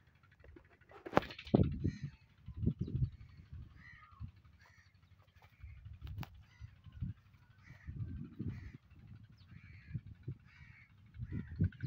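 Short bird calls repeated about every half second to second from about three seconds in, over intermittent low rustles and thumps, with one louder broad rustle about a second in.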